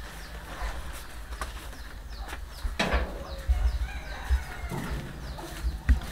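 Chickens clucking, with short high bird calls repeating throughout, and a single sharp thud about three seconds in.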